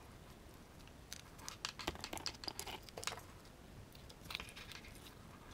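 Hands handling a battery pack and its cable: scattered small clicks and rustles, most of them between about one and three seconds in, with a few more a little after four seconds.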